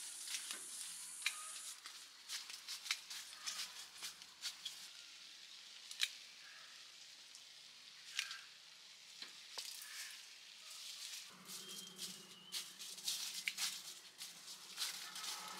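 Irregular crackles and snaps of a person walking and handling fruit among dry leaf litter and bagged guavas. A low steady hum comes in about two-thirds of the way through.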